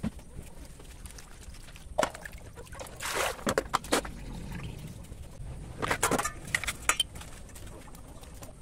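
Water trickling and dripping out of a plastic colander of freshly washed shredded vegetables. Sharp knocks and rustles come in clusters about two, three and six seconds in, as the wet colander and vegetables are handled.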